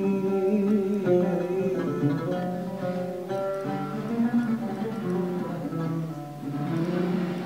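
Music: a plucked string instrument playing a melody of held notes.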